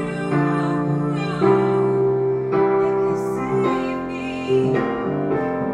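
A woman singing held, slow notes into a handheld microphone over a piano accompaniment.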